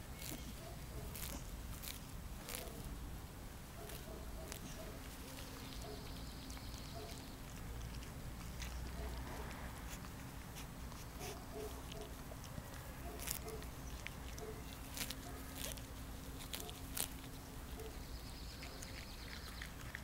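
Dogs grazing on a lawn: irregular small sharp snaps of grass being torn off, mixed with soft chewing.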